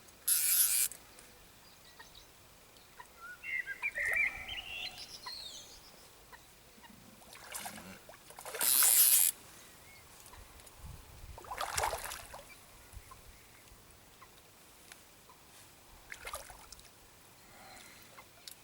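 Short bursts of splashing water, several times, as a hooked tench is played and landed at the edge, the loudest near the start and about halfway through. A short rising bird call sounds a few seconds in.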